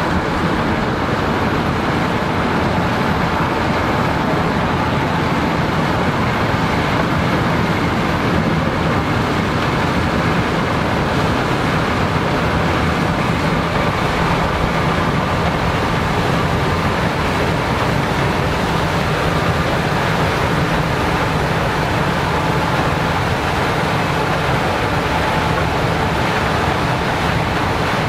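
Gleaner S98 combine harvesting corn, its engine and threshing machinery running steadily at close range, a faint steady whine over a broad rushing noise.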